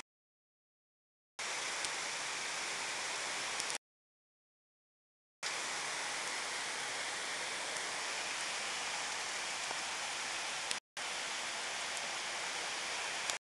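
Rain falling, a steady hiss. The sound cuts out completely for about a second and a half at the start and again around four to five seconds in, with two brief dropouts later on.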